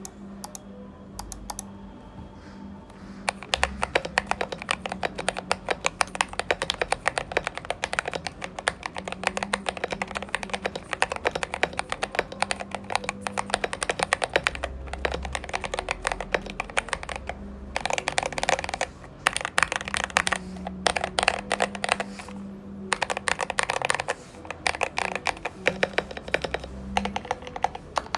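Typing on a mechanical keyboard: a CIY Tester68 with factory-lubed Gateron G Pro Yellow linear switches on a steel plate, XDA-profile PBT keycaps, foam-dampened with a tape mod. A few scattered keystrokes, then fast continuous typing from about three seconds in, broken by short pauses in the second half.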